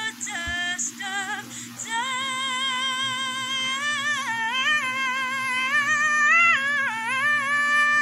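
A woman singing solo into a close microphone: short phrases at first, then long held notes with vibrato and quick runs up and down in pitch, ending on a sustained note.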